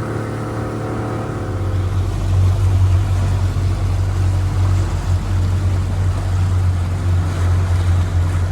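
Motorboat engine running under way on open water. About a second and a half in, a heavy low rumble rises and holds as the boat gets moving.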